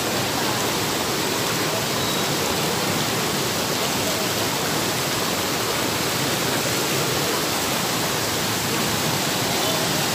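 Floodwater of the overflowing Cimanuk River rushing through a village lane: a steady, unbroken rush of fast-moving water.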